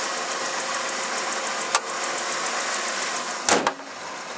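1997 Dodge Grand Caravan's 3.8 V6 idling steadily, a nice-running engine with a faint even ticking. A sharp click comes about two seconds in, and a loud thump about three and a half seconds in, after which the engine sounds quieter.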